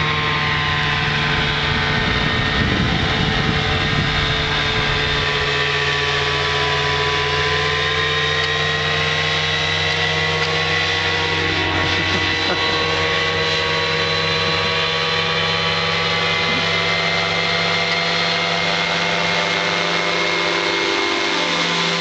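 An engine running steadily, its pitch sagging slightly and coming back up. There is a rumbling low noise over the first few seconds.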